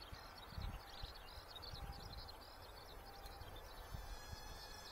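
High-pitched chirping goes on without a break in the background, with a few low thuds of wind buffeting the microphone.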